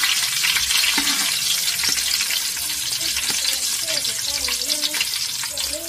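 Bay leaves, green chillies and whole spices sizzling in hot oil in a large metal pot, with a metal spoon scraping and ticking against the pot as they are stirred. A faint wavering pitched sound comes in about halfway through.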